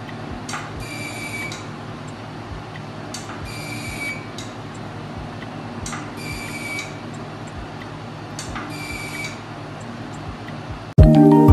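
CO2 laser machine running with a steady hum, with a click and a short high buzzing tone about every two and a half seconds, four times, as the handpiece fires on the skin. Chime music starts suddenly near the end.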